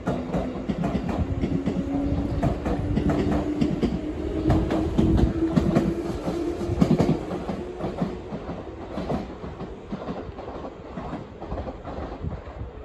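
JR East 211-series electric multiple unit running past, its wheels clacking steadily over the rail joints, with a motor whine rising slowly in pitch as it picks up speed. It is loudest as the cars go by, then fades as the train moves away.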